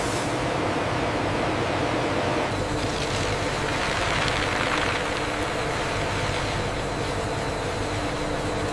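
Feed pellet machinery running with a steady hum, under the hiss of pellets pouring onto a steel conveyor trough; the rushing hiss swells for a couple of seconds about three seconds in.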